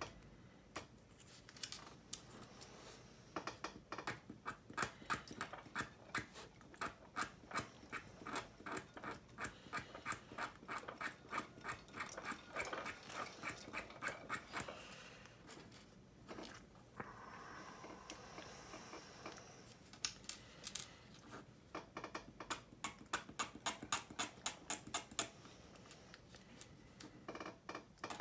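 Hobby knife blade scraping and carving a small plastic seat cushion to rough up its flat surface, making quick short scratchy strokes about three a second. The strokes come in runs, with a short pause near the middle.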